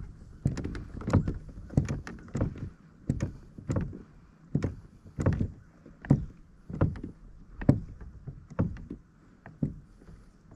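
Water sloshing and slapping against the kayak's side in a steady rhythm, about one stroke every two-thirds of a second: a pike being drawn back and forth in the water beside the boat to revive it before release.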